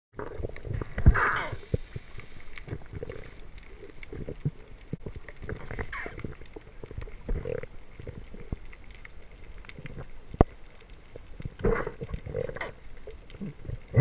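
Underwater sound picked up through a GoPro's waterproof housing: scattered sharp clicks and knocks with a few short muffled gurgles.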